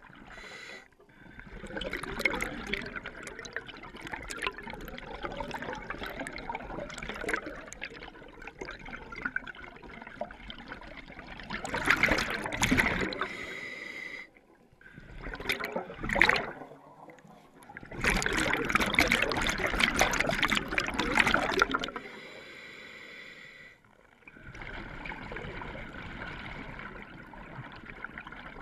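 Scuba diver breathing through a regulator underwater: bubbly exhalations rising to louder bursts about twelve seconds in and again for several seconds near two-thirds of the way through, with quieter hissing stretches between.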